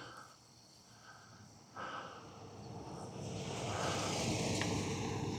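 A sheriff's car approaching and driving past on the road, its tyre and engine noise swelling from about two seconds in to a peak near the end.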